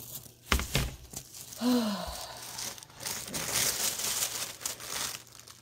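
Packaging crinkling and rustling as a handbag is unwrapped, with a couple of sharp knocks about half a second in and a short falling sigh near two seconds.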